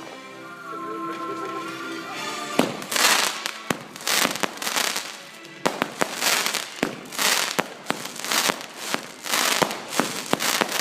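Fireworks going off: a dense run of sharp bangs and crackling bursts that starts about two and a half seconds in, after music with held notes at the start.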